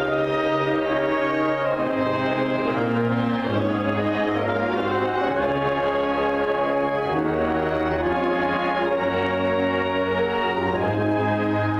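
School band playing a slow piece of sustained chords that change every second or two, at an even volume.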